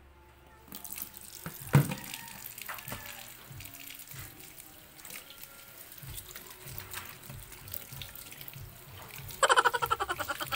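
Water running from a kitchen tap into the sink over cassava pieces, starting under a second in, with a sharp knock about two seconds in. Near the end a loud, rapidly pulsing sound lasts about a second.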